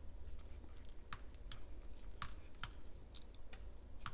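Tiny ice cubes clinking against each other and the bowl in fruit and coconut water, a string of sharp, irregular clicks.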